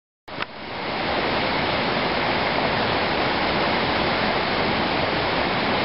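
Rushing water of a river waterfall, a steady even rush that starts suddenly with a click just after the start and reaches full level within about a second.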